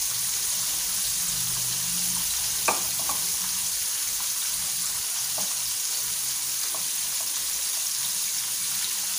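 Flour-coated catfish frying in hot oil in a pan: a steady sizzling hiss with scattered faint pops and one sharper click about two and a half seconds in. The crispy flour coating keeps the oil from spattering much.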